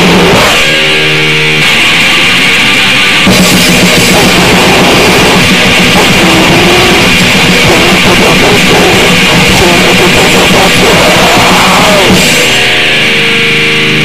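Harsh, very loud noisecore: distorted guitar and drum kit in a dense, chaotic wall of noise, with held distorted chords near the start and near the end.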